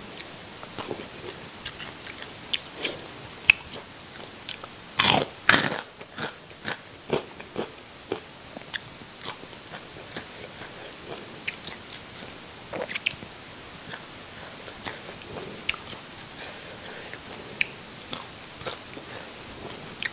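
Close-up chewing and crunching of crispy deep-fried whole sea smelt with roe: scattered crisp crunches, the loudest two about five seconds in, with quieter chewing between them.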